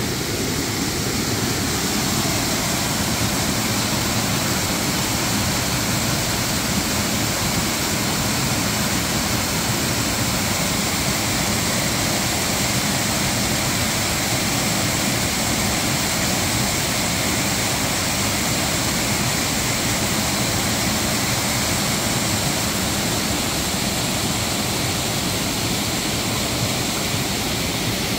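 Creek water rushing down a small cascade over bedrock, a steady rush of noise that does not change.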